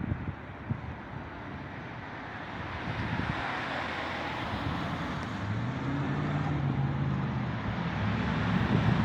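Road traffic: a motor vehicle approaching, its road noise building, then an engine hum coming in about halfway through and growing louder toward the end.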